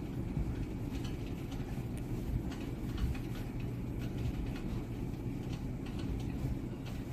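A steady low rumble throughout, with faint light clicks as the plastic and rubber blender gear parts are handled.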